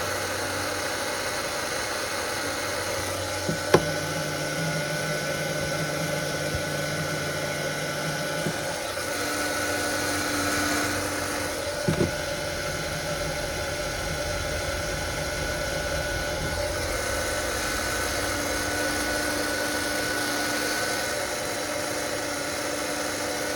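Steady hum of a small electric motor or fan, with a sharp click about 4 seconds in and another about 12 seconds in.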